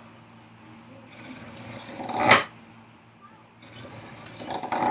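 Marking knife drawn along a combination square, scoring a line across a wooden board. Two long scratching strokes, each getting louder toward its end.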